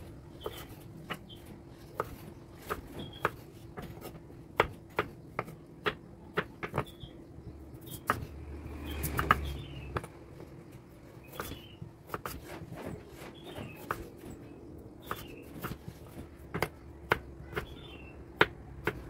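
Kitchen knife dicing peeled potatoes on a wooden cutting board: irregular sharp knocks of the blade striking the board, about one or two a second, over a faint steady hum.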